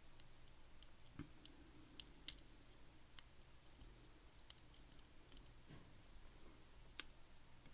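Faint, scattered small metallic clicks and ticks of lock parts and tools being handled while a hotel lock cylinder is taken apart pin by pin. The sharpest tick comes about two seconds in, another near the end.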